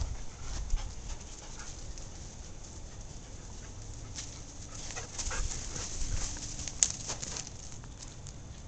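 German shorthaired pointer puppy and adult dog playing on grass: scuffling paws and light thumps, busiest in the middle of the stretch, with a sharp click about seven seconds in.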